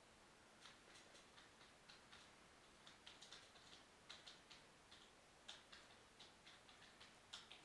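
Near silence: room tone with faint, irregular light clicks and ticks scattered throughout, a few at a time, with no steady rhythm.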